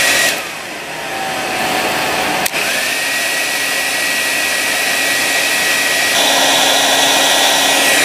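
An 1875-watt handheld hair dryer running with a steady fan rush and a high motor whine. About two and a half seconds in there is a click and a brief dip, and the motor whine glides back up to speed. It gets slightly louder about six seconds in.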